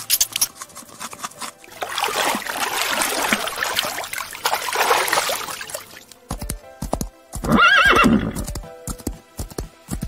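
A horse whinnies once, briefly, a little after the middle, over a run of steady hoofbeats, with music. Before it comes a stretch of rushing noise.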